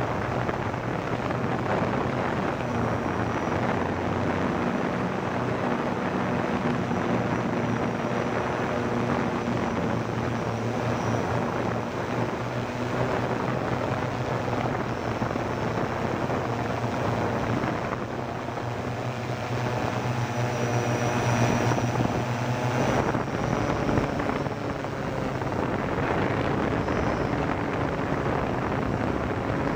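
Quadcopter's electric motors and propellers whirring steadily, heard close up from the aircraft itself, mixed with wind noise; the motor tones strengthen and shift in pitch about two-thirds of the way through as the craft manoeuvres.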